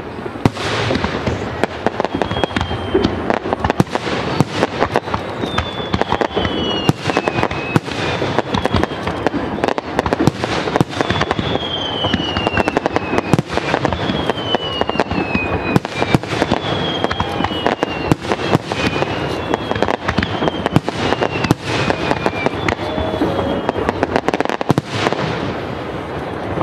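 A dense, continuous barrage of aerial firework shells bursting and crackling, with many overlapping bangs. Several high whistling tones fall in pitch one after another through the barrage.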